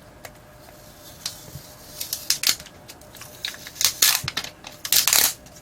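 Crinkling and rustling of thin plastic with sharp little clicks as small parts are handled on a work surface. It starts with a couple of isolated clicks and gets busier and louder from about two seconds in.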